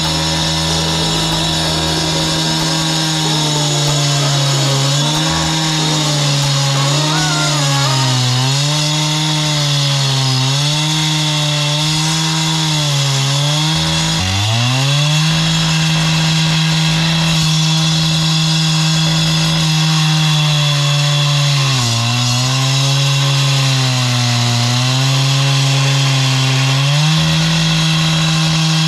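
Gas-powered concrete cut-off saw cutting into a concrete foundation wall, its engine running at high speed throughout. The engine pitch sags and recovers again and again as the blade is pressed into the cut, with one deep drop and pull-back about halfway through.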